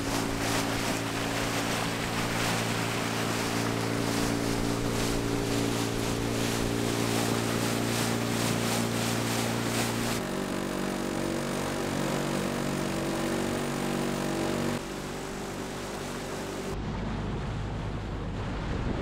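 Small boat's motor running steadily under way, with wind and water noise. The motor's tone and level change abruptly about ten, fifteen and seventeen seconds in.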